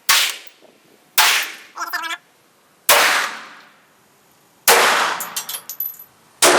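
Glock 30 pistol in .45 ACP fired five times in slow, deliberate single shots, each about one and a half seconds apart, with a short metallic clink after the second shot.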